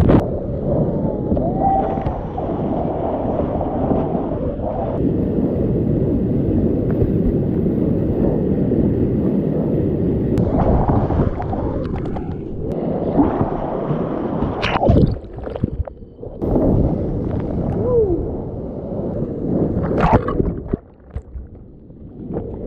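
Rushing river rapids heard muffled through an action camera's waterproof housing, gurgling and sloshing as the kayak runs whitewater and the camera goes under. A few sharp knocks stand out about two-thirds of the way through and again near the end.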